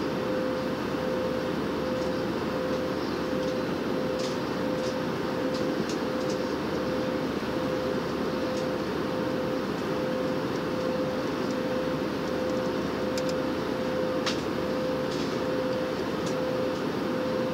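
Airliner passenger cabin at cruising altitude: the steady roar of the jet engines and airflow, with a constant mid-pitched hum riding on it. A few faint clicks come through in the middle.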